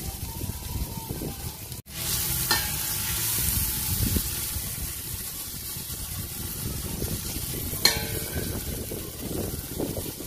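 Chopped onion sizzling in hot oil in a stainless-steel pot while a spatula stirs it; the sizzle gets louder about two seconds in. A sharp metal clink against the pot sounds about eight seconds in.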